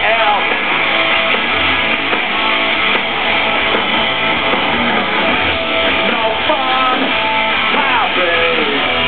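A live rock band playing loud, with strummed electric guitar to the fore, over a festival PA heard from out in the crowd.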